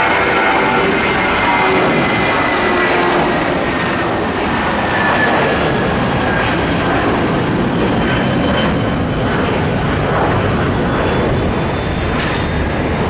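Airbus A320 jet airliner taking off, its twin jet engines at take-off power: a loud, steady rush of noise with faint whining tones that slowly fall in pitch as it moves off.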